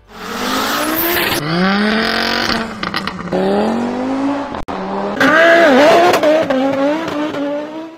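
Audi turbocharged five-cylinder cars accelerating and revving hard in a string of short cuts, the engine pitch climbing, then dropping or breaking off at each cut. The loudest run, about five seconds in, wavers up and down at high revs.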